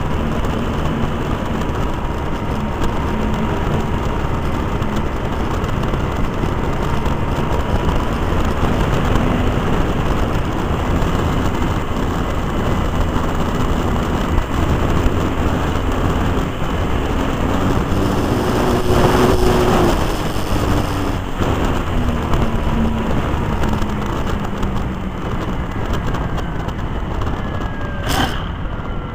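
Onboard sound of a radio-controlled model aeroplane in flight: a steady rush of wind and engine noise, with the engine's note drifting slightly in pitch. It breaks off abruptly near the end.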